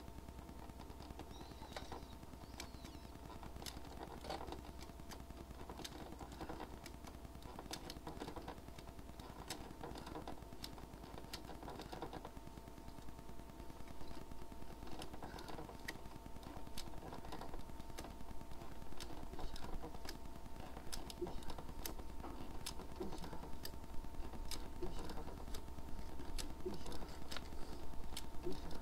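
Irregular small clicks and clatter, getting busier and louder over the second half, over a faint steady two-tone hum.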